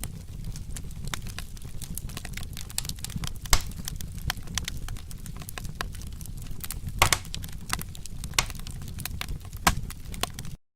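Wood fire crackling, with scattered sharp pops over a steady low rumble of burning. Louder pops come about three and a half and seven seconds in, and the sound drops out completely for a split second near the end.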